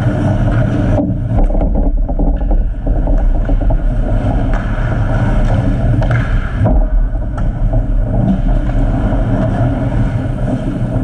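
Loud, steady low rumble picked up by a camera microphone fixed behind an ice hockey net, with one sharp knock about two-thirds of the way through.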